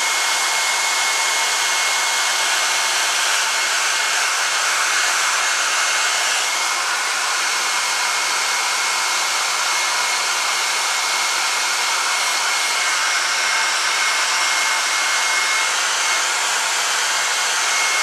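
Handheld hair dryer running steadily at close range, blowing over a squirrel mount's fur to fluff it: an even rush of air with a thin, steady high whine.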